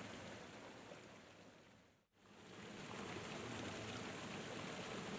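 Steady rush of falling water, fading out about two seconds in and fading back in after a brief moment of silence.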